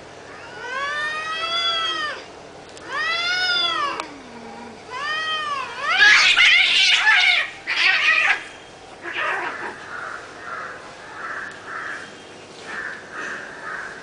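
Domestic cats fighting: three long yowls that rise and fall in pitch, then a loud harsh screech about six seconds in, followed by softer, shorter wails repeating about twice a second.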